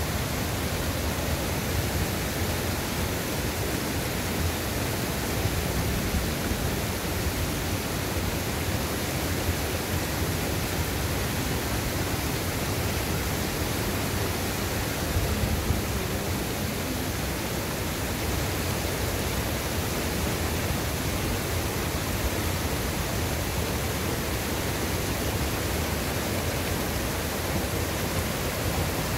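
Steady rush of water in a small, fast-flowing river, an even hiss with no change throughout.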